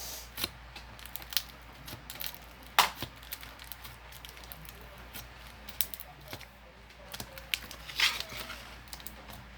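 Iceberg slime being poked and squeezed by hand: its hardened crust cracks and pops in scattered sharp crackles, with a longer squishing crackle about eight seconds in.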